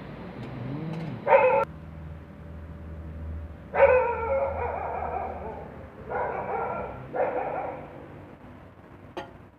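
A dog barking and whining in four calls: a short one, then a long drawn-out one of a second and a half or more, then two shorter ones close together.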